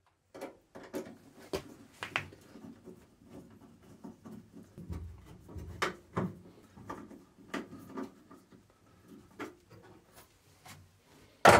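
Hands fitting small parts in a car's steel boot: irregular light clicks and knocks of parts against the body panels, with one sharp, much louder knock near the end.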